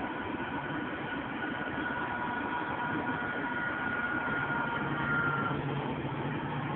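Tram running, heard from on board: steady rolling noise with a thin electric whine that rises slightly and dies away about three quarters of the way through, while a low hum comes in a little past the middle.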